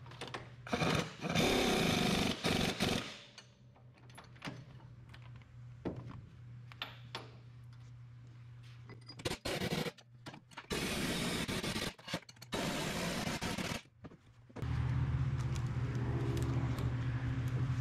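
Cordless impact wrench running in short bursts, tightening the nuts on a truck suspension torque rod: one long burst about a second in, then a cluster of bursts past the middle. A steady low hum comes in near the end.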